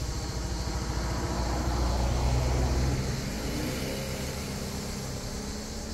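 A motor vehicle passing on the road: its engine rumble swells to a peak about two to three seconds in and then slowly fades away.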